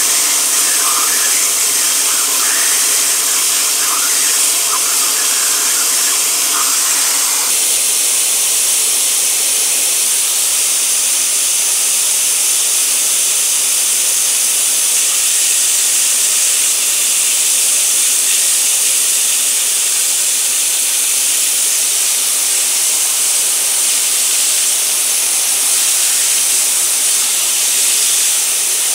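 Steady, loud hiss of rushing air, with faint squeaks during the first seven seconds or so.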